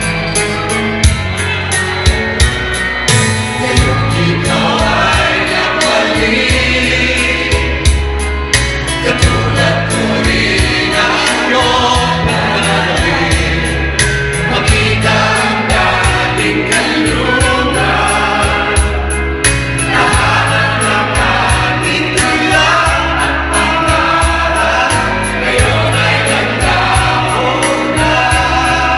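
A group of men and women singing together into microphones over a videoke backing track with a steady drum beat. The voices come in about four seconds in.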